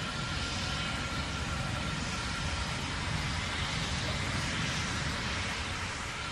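Terran 1 rocket's nine-engine first stage in powered flight: a steady low rumble and hiss of rocket exhaust, with a faint steady high tone over it.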